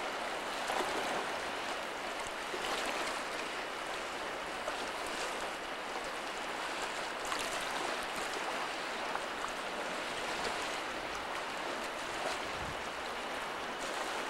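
Strong wind blowing steadily outdoors: a constant, even rushing noise.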